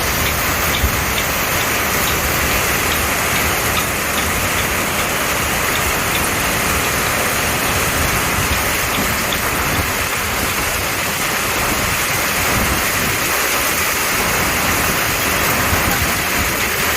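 Heavy summer rain shower falling steadily, a dense, even hiss of rain.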